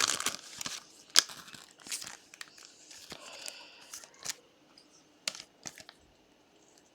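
Trading cards being handled and flipped through, with crinkling plastic and light clicks and taps. The rustling is busiest in the first second, then thins to occasional taps.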